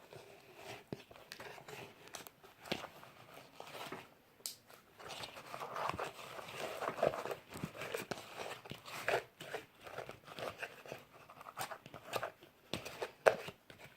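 Homemade glue-and-borax slime squeezed and pulled by hand, giving irregular small sticky crackles, clicks and squelches.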